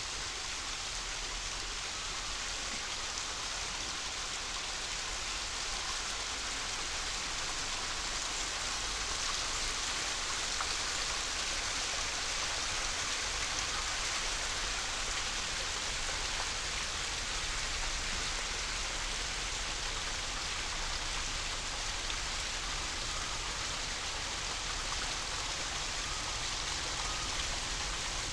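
Water from a multi-tier pondless waterfall splashing down its rock cascades in a steady hiss.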